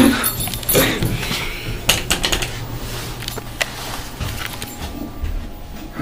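Elevator car riding with a steady low hum, with a few sharp clicks and knocks.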